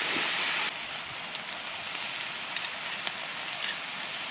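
Marinated pork shoulder sizzling in a cast iron skillet: a steady hiss that steps down to a softer sizzle with light crackles about a second in.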